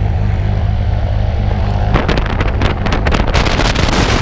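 Piston engine of a light high-wing single-engine plane running at idle, a steady low drone. From about two seconds in, gusty wind buffets the microphone over it.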